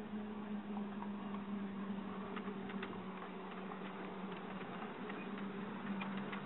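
Ride-on miniature railway train moving off, its wheels clicking lightly over the rails, more often after about two seconds. A steady buzzing hum runs underneath.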